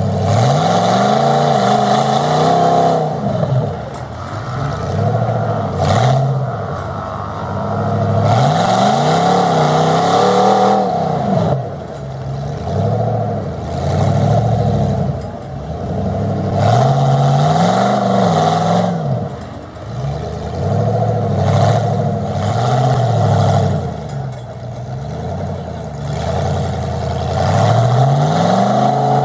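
A mud truck's engine revving hard again and again, its pitch climbing and falling every few seconds, with short bursts of hiss laid over it.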